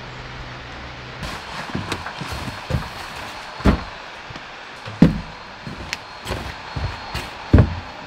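Footsteps and knocks on a wooden deck as a heater carry bag and a plastic fuel jerry can are carried and set down, with three heavier thumps spread through it, the last near the end.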